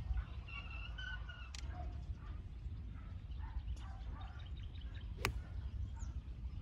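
A golf club strikes a ball off the tee with one sharp, short crack about five seconds in. Under it there is a steady low wind rumble, with a few bird chirps near the start.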